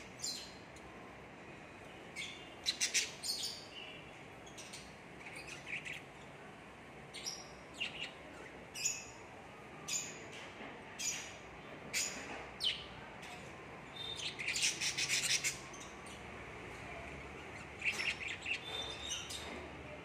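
Cockatiels chirping: short, high calls scattered through, coming thick and fast in a run about two-thirds of the way in and again near the end.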